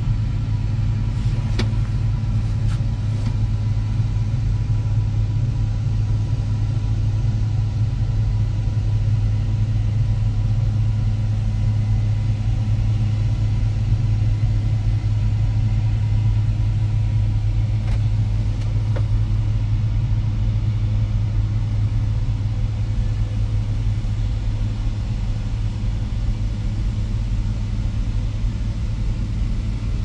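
Case IH combine harvester running steadily while harvesting soybeans, a continuous low engine and threshing rumble that holds an even pitch and level.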